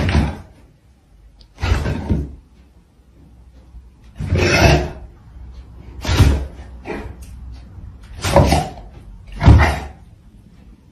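A dog and a cat scuffling in a play-fight: about six short, noisy bursts of sound a second or two apart.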